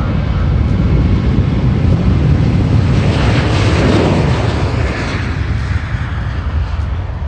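Jet aircraft engine noise: a loud, steady rushing roar that swells around the middle, then eases slightly.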